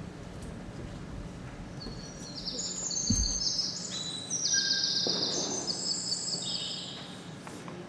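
Recorded birdsong played as a stage sound effect: many high chirps and fast trills, busiest from about two seconds in and fading near the end, over a steady low hum. There is a single soft low thump about three seconds in.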